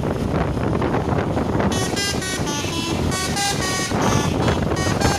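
A bus telolet horn, a set of multi-tone air horns, playing a quick melody of short notes that change pitch rapidly. It starts about a second and a half in, over a low rumble.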